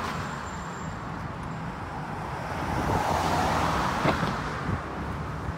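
Street traffic noise with a steady low rumble; a car passes, swelling and fading about three to four seconds in.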